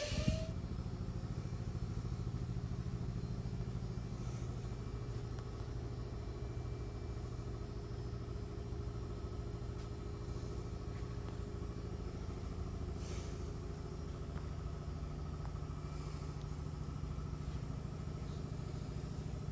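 Engine of an antique car idling steadily, with a low, even drone.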